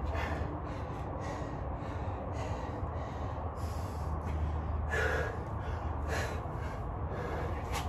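A man breathing hard and fast, short gasping breaths about once a second, from the exertion of burpee reps in a weighted vest. A low steady hum lies under it.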